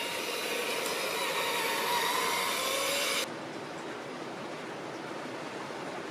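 Traxxas TRX-4 Bronco RC crawler's electric motor and gearbox whining as the truck drives, the whine rising slightly in pitch just before it cuts off abruptly about three seconds in. What remains is a steady rushing of flowing river water.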